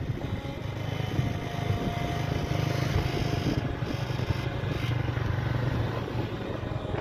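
Motorcycle riding along a road at speed: steady engine running mixed with wind rushing over the microphone.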